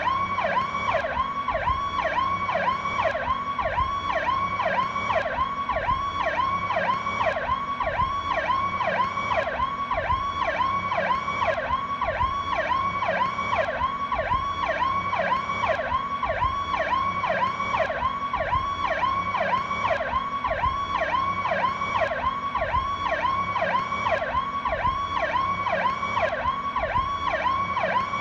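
Powercall electronic police siren sounding a fast yelp. It sweeps up and down in pitch about twice a second, steady and unbroken.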